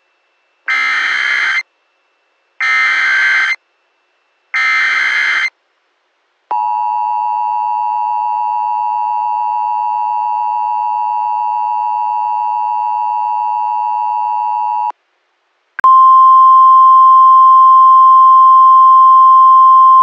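Emergency Alert System alert tones. First come three short bursts of SAME header data, each about a second long and evenly spaced. Then the EAS two-tone attention signal runs steadily for about eight seconds, and near sixteen seconds in a louder single steady tone starts, the NOAA Weather Radio 1050 Hz warning alarm tone.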